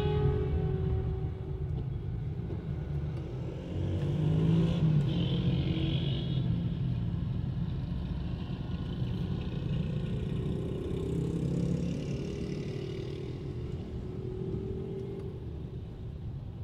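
Road traffic: vehicles passing with their engines running over a steady low rumble, one of them climbing in pitch about four seconds in and another around ten seconds in.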